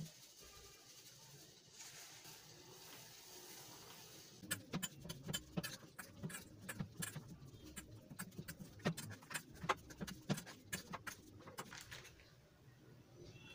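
Metal potato masher pressing boiled potatoes in a stainless-steel bowl: a quick, irregular run of soft thuds and clicks of the masher plate against the bowl. It starts about four seconds in and stops shortly before the end.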